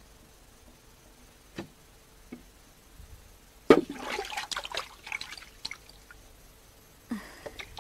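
A splash as a live fish is let go into a river, followed by about two seconds of splashing and dripping water. A smaller splash comes near the end.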